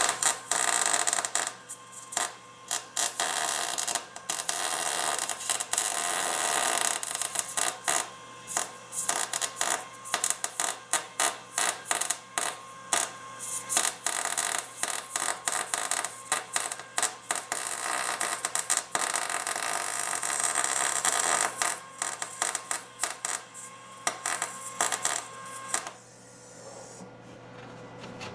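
Electric welding arc crackling in a string of short runs, with a faint steady hum underneath; it stops about two seconds before the end. Weld is being laid to fuse a plate onto a broken, rusted bolt stub so the bolt can be turned out.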